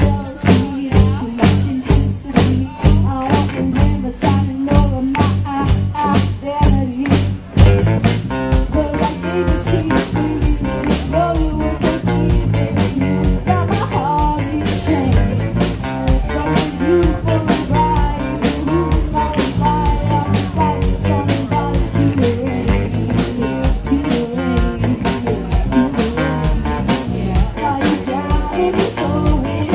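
Live rock band playing: for the first seven or so seconds a steady beat of about two hits a second under electric guitar, then the full band comes in denser, with a female lead vocal over electric guitars, bass and drum kit.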